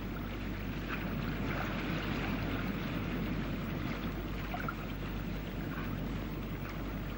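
Steady rushing noise, even throughout, over a low constant hum.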